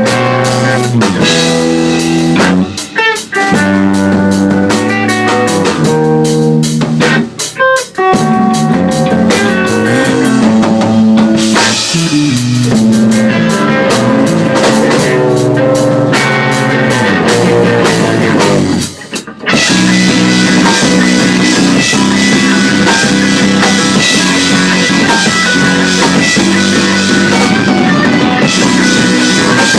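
Rock music with drum kit and guitar playing, broken by a few brief stops, one of them longer about two-thirds of the way through, after which the music carries on.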